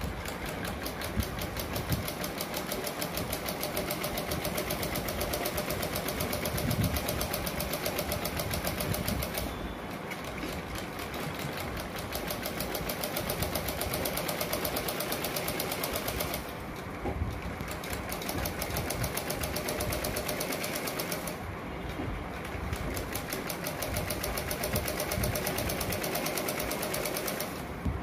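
Black Usha domestic sewing machine stitching a seam, a fast, even run of needle strokes, stopping briefly three times as the fabric is repositioned.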